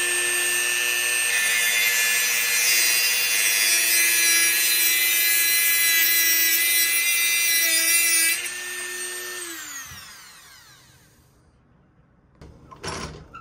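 Handheld rotary tool with an abrasive cutoff wheel running at high speed and grinding through the excess end of a pocket knife's blade pin, a steady whine with harsh grinding hiss. About eight seconds in it is switched off and spins down with a falling whine. A brief rattle follows near the end.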